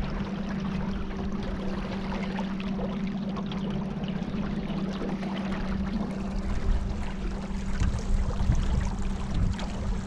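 Boat motor running with a steady low hum over water splashing and rushing past the hull; the hum weakens near the end.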